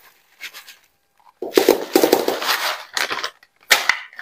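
Plastic grocery packaging rustling and crinkling as it is handled, in a long stretch about a second and a half in and a sharp crackle near the end.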